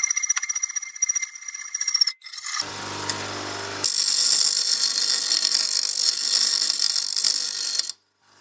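Hacksaw cutting through a steel M8 threaded rod clamped in a vise: rapid strokes with a steady metallic ringing. After a break about two seconds in, a bench grinder's motor hums for about a second, then the rod's cut end is ground on the grinding wheel, a steady grinding hiss that cuts off shortly before the end.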